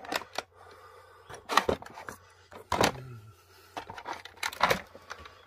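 Handling noise of a plastic-packaged model car: irregular clicks and knocks, the loudest about a second and a half and nearly three seconds in.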